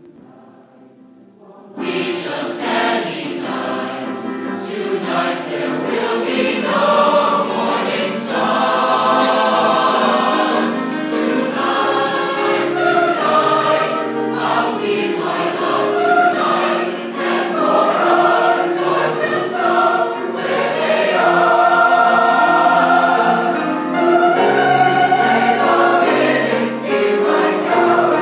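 Large mixed choir of male and female voices singing in full harmony, coming in loud about two seconds in after a faint start.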